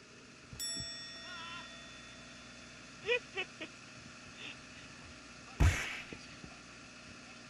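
A bright ding about half a second in that rings on for roughly two seconds, a few short shouted calls around three seconds in, and a loud thump near six seconds.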